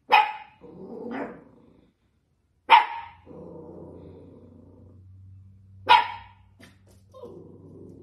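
Dachshund puppy barking: three sharp barks about three seconds apart, each followed by a lower, longer growl.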